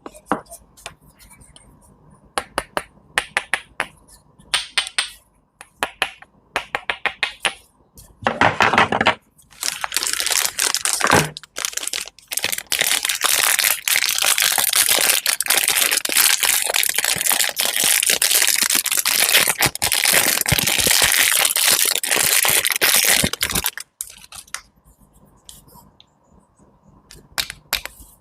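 Fruit and vegetables being cut and crushed at close range: bunches of quick cutting strokes, then from about ten seconds in a long stretch of loud, dense crackling and crushing that stops abruptly near the end, followed by lighter strokes.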